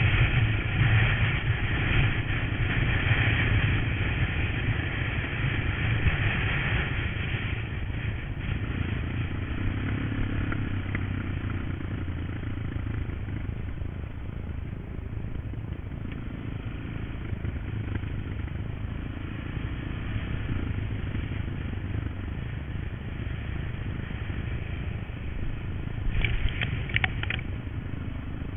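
Honda trail motorcycle running while being ridden, a steady low engine hum. It is louder, with a rushing noise, for the first several seconds, then settles to a quieter steady run. A brief clatter of clicks comes near the end.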